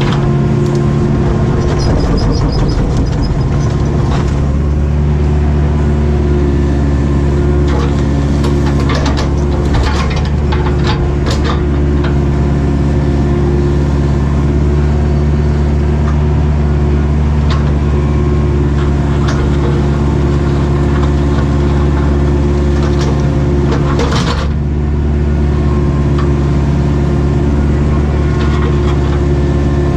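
Cat 307B excavator's diesel engine running steadily, with scattered sharp knocks and clatters, a cluster of them about a third of the way in and another near the end.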